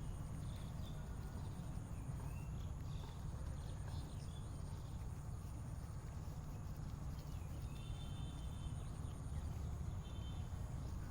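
Pigs in a pig farm pen making animal sounds over a steady low rumble, with a few faint high chirps.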